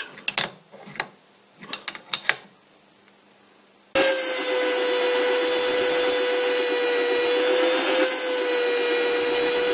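A few light clicks and knocks, then about four seconds in a Dremel-type rotary tool starts with a steady high whine, its diamond cutoff wheel grinding the face of a metal ring turning in the lathe chuck. The grinding is steady throughout and leaves a poor surface finish.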